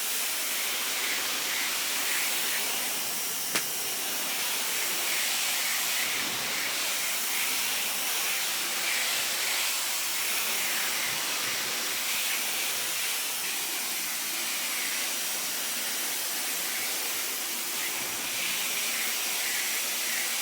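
Sun Joe SPX3000-QW2 electric pressure washer spraying, a steady rush of high-pressure water with its electric motor running underneath. A single sharp click comes about three and a half seconds in.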